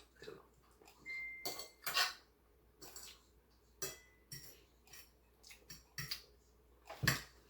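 Eating utensils clinking against a dish: a scattering of short sharp clinks, one of them ringing briefly with a high tone about a second in.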